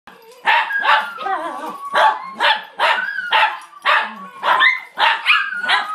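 Chihuahuas and Alaskan Klee Kai barking and howling together: about ten sharp yapping barks, with wavering, gliding howls held between them.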